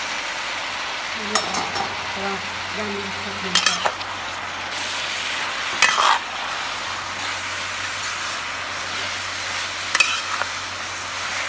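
Yellow noodles and vegetables sizzling steadily as they stir-fry in a pan, with a metal spatula scraping and knocking against the pan a few times.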